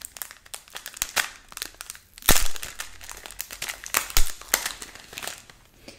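Crinkling and crackling of a small gift package handled close to the microphone, dense little clicks throughout, with two louder crunches about two and four seconds in.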